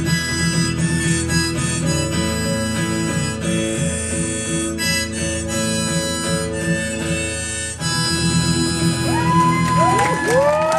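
Harmonica over a strummed acoustic guitar playing the song's instrumental outro with held chords. Near the end the audience starts cheering and whooping.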